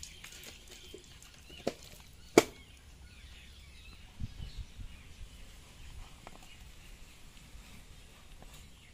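Outdoor background with faint bird chirps, broken by two sharp knocks a little under a second apart, the second the louder. A few soft low thumps follow a couple of seconds later, typical of raw meat and a wooden board being handled.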